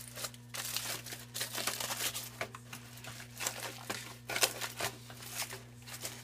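Aluminium foil crinkling and crackling in irregular rustles as gloved hands unfold it from around a hair bundle, over a faint steady low hum.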